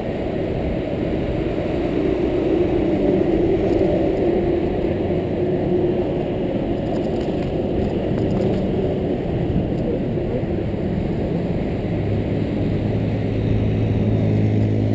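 Steady wind rush on the microphone of a handlebar-mounted action camera on a road bike riding at speed, mixed with the bike's tyres running on asphalt.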